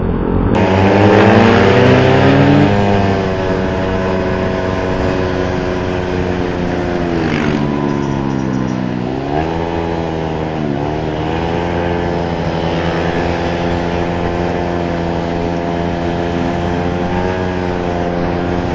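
Motorcycle engine running loud through an exhaust pipe fitted with a silencer, the pipe still noisy. It revs up over the first few seconds, drops in pitch as the bike slows around the middle, picks up again and then runs steadily.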